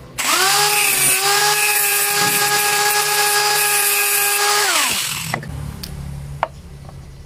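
Small electric grinder spinning up with a rising whine and cutting metal with a loud hiss, trimming off a short length of a connector's thread. It runs steadily for about four seconds, then winds down and stops about five seconds in.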